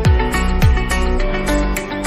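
Background music with plucked guitar over a steady beat of deep kick-drum strokes; the beat drops out about a second in.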